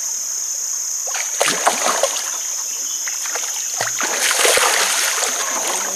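A hooked patin catfish thrashing and splashing at the water surface beside a boat, in two spells: one about a second in and a louder one about four seconds in. A steady high insect buzz runs underneath.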